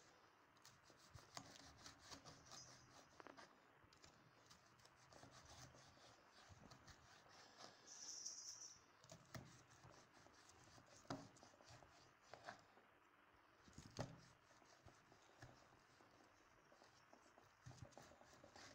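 Faint scraping of a kitchen knife cutting through a baked dough slab, with light clicks and a few sharper taps of the blade on a wooden cutting board in the second half.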